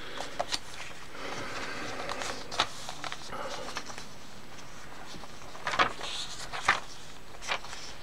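Paper handling in a handmade junk journal: a tucked card is lifted and a page is turned, giving soft rustling and several short paper crackles, two of them sharper near the end.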